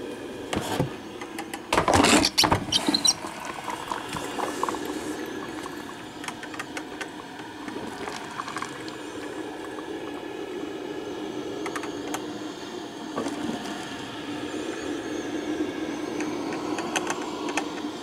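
1985 Black & Decker drip coffee maker mid-brew, gurgling steadily as its heater pushes water up to the filter basket. A burst of loud knocks comes about two seconds in.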